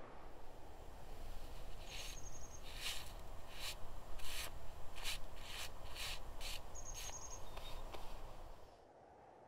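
Gloved hand brushing snow off a stone grave cross: a dozen or so quick, dry swishing strokes over a low rumble, with two brief high chirps among them.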